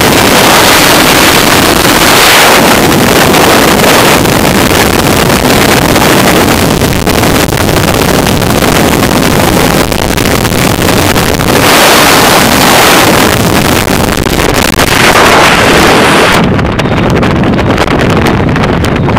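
Loud freefall wind rushing over the microphone, surging and easing. About sixteen seconds in the highest hiss drops away as the parachute opens and the fall slows.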